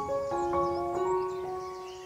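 Slow, soothing background music of sustained, overlapping notes that change every half second or so.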